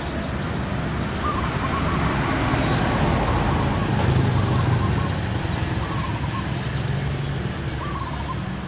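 Steady engine drone that swells a little in the middle, with a few short, high warbling calls over it.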